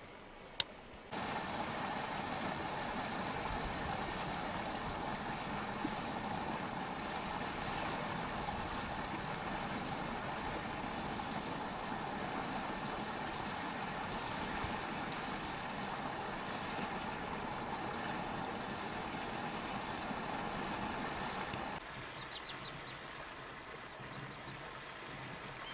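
Steady engine-like running noise with a constant hiss. It begins abruptly just after a single click about a second in, and cuts off sharply about four seconds before the end, leaving a quieter background.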